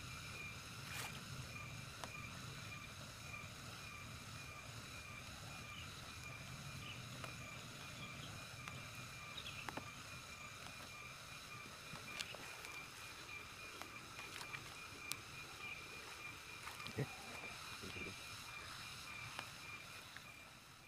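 A steady, pulsing chorus of frogs, with occasional soft clicks and splashes as hands work in shallow muddy water.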